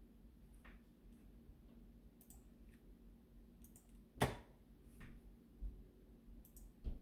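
Scattered light clicks and taps at irregular intervals over a faint steady hum, with one louder knock a little over four seconds in.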